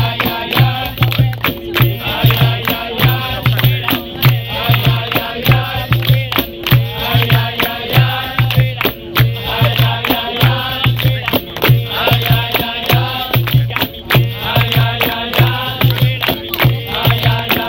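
Capoeira roda music: a steady low drum beat with sharp rattling percussion and singing voices over it.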